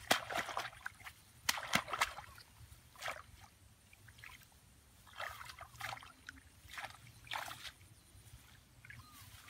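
Shallow water splashing and sloshing as a person wades through flooded grass and gropes in it by hand: a run of irregular splashes, the loudest in the first two seconds.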